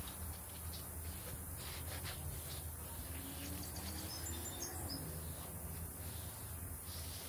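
Faint rubbing of a cloth wiping a tire's rubber sidewall over a steady low hum, with a few high bird chirps about four seconds in.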